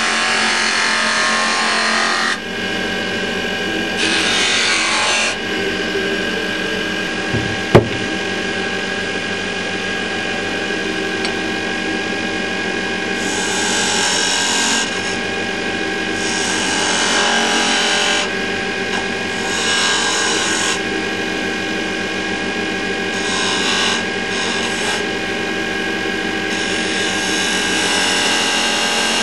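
Axminster wood lathe running with a steady hum while a turning tool cuts the spinning wooden candlestick spindle, the cutting heard as a scraping hiss in repeated passes of a few seconds each. One sharp click about eight seconds in.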